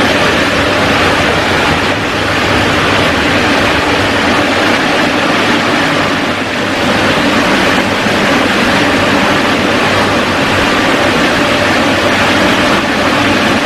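Automatic car wash air dryers running: large blower fans push air out through nozzles in a loud, steady rush, with a steady low hum from the blower motors underneath. The level dips briefly about six and a half seconds in.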